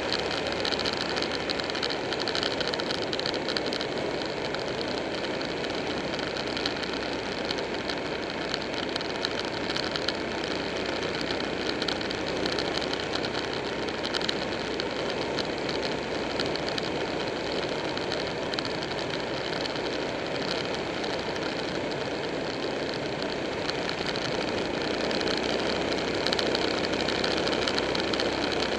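Buell 1125R motorcycle's liquid-cooled V-twin engine running at road speed, mixed with steady wind and road noise, a little louder near the end.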